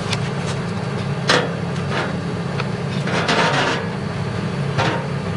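Computer parts being handled: a few light knocks and clicks, with a short scraping rub about three seconds in, over a steady low hum.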